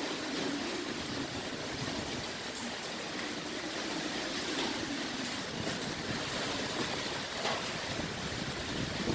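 Typhoon-force wind blowing steadily, a continuous rushing with a low hum underneath and brief gusting swells.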